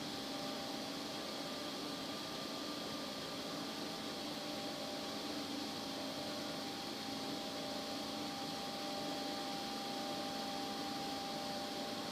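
Steady mechanical hum and hiss with a few faint steady tones, unchanging throughout: background machine noise in a large steel-roofed hall.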